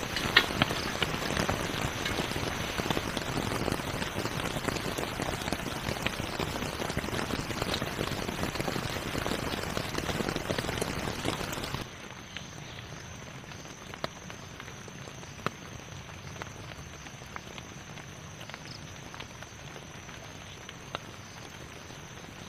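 Rain falling on a tent, dense at first, then dropping abruptly to a lighter patter about twelve seconds in, with a few small ticks.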